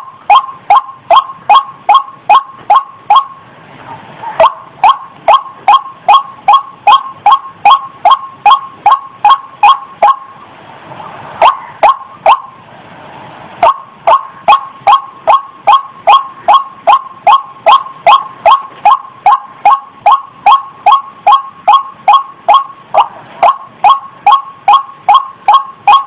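White-breasted waterhen calling: a long run of short, sharp notes repeated about three times a second, with a short break about three seconds in and a longer, patchier gap around ten to thirteen seconds in.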